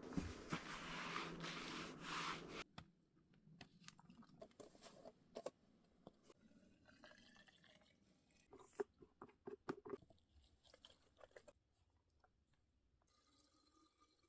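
Near silence: a faint hiss for the first couple of seconds, then scattered faint clicks and taps.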